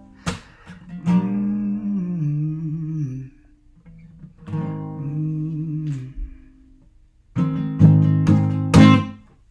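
Acoustic guitar strummed, chords ringing between strokes, with wordless held vocal notes over it. A louder final run of strums comes near the end, then stops as the song closes.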